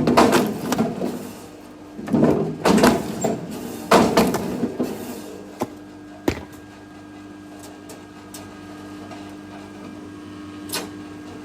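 Firewood logs being split: several loud cracks with splintering of wood in the first five seconds, then a few sharp knocks over a steady low hum.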